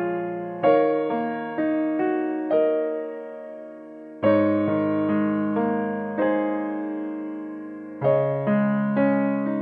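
Solo piano music: slow phrases of struck notes and chords that ring and fade, with new phrases beginning about half a second in, about four seconds in and about eight seconds in.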